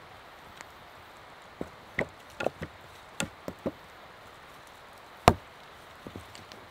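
Wood being handled or worked: a series of irregular sharp wooden knocks and clicks, with one heavy knock about five seconds in.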